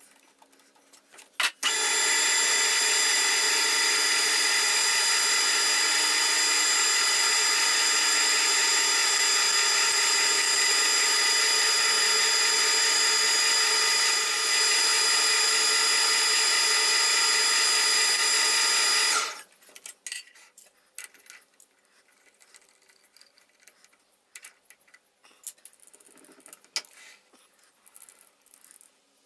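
Metal lathe running at a steady speed, a steady machine sound made of many even tones, while a tailstock drill chuck drills into the end of a small bar held in the spinning three-jaw chuck. It starts about two seconds in and cuts off sharply after about nineteen seconds, leaving light clicks of tools being handled.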